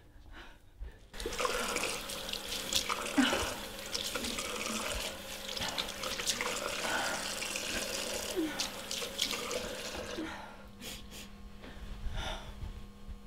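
Tap running into a sink with water splashing as a face is washed; it comes in suddenly about a second in and stops about ten seconds in.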